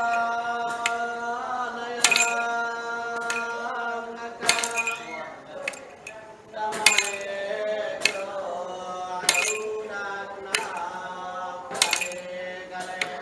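Iban timang ritual chant: a male bard's chanting voice draws out long, held vowels. About every 1.2 s the chanters' staffs strike the floor in step, each strike giving a short metallic jingle.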